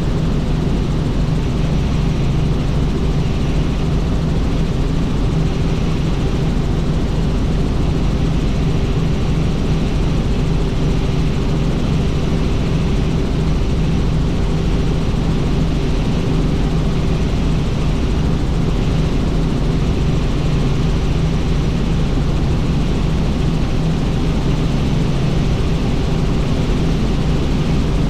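Helicopter's turbine engine and rotors running steadily in cruise flight, a constant low hum over rushing noise.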